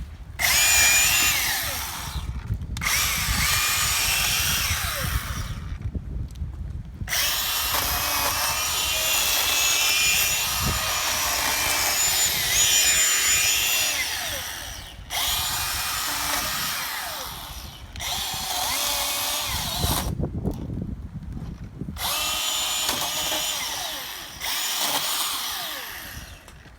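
Milwaukee M18 16-inch battery chainsaw whining as it cuts small pine branches, run in repeated bursts of a few seconds with short pauses between, one run lasting about eight seconds in the middle.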